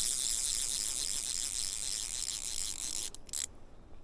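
A high, steady insect buzz that cuts off suddenly about three seconds in, followed by a few short clicks.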